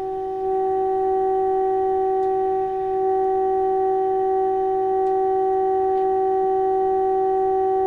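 A steady test tone: the signal generator's modulation tone coming through the rebuilt 1947 Tasma 1002 valve radio as it receives the generator's signal. It comes in suddenly at the start and holds at one unwavering mid pitch.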